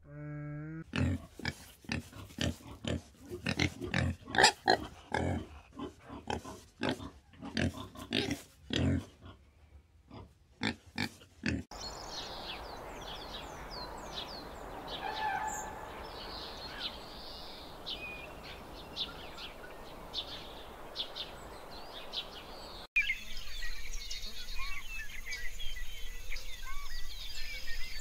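A rapid run of short, gruff animal calls for about the first eleven seconds. This cuts abruptly to a steady outdoor hiss with scattered high chirps, and after a second cut, near the end, to a denser chorus of chirps.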